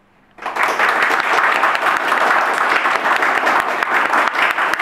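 Audience applauding: after about half a second of quiet, a room full of people starts clapping all at once and keeps up steady applause.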